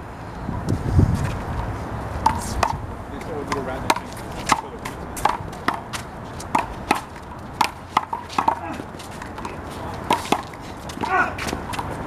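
A one-wall handball rally with a big blue rubber ball: a run of sharp slaps as the ball is struck by hand and bounces off the wall and court, about two a second.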